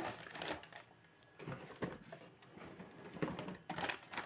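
Clear plastic bag crinkling and rustling as a hand rummages among small plastic bottles and caps inside it, in irregular bursts with a brief lull about a second in.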